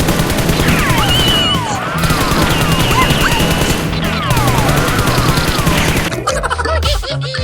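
Rapid-fire gunfire sound effects, a dense stream of shots, with rising and falling whistling sweeps mixed in, over background music with a steady bass line. The firing stops about six seconds in, and the music carries on.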